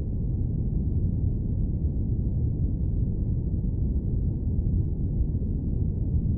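Airplane cabin drone used as sleep noise: a steady, deep rumble of noise with almost nothing in the high range, unchanging throughout.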